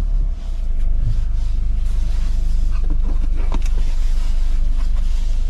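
Car moving off and driving slowly, heard from inside the cabin: a steady low rumble of engine and tyres that builds in the first second, then holds level.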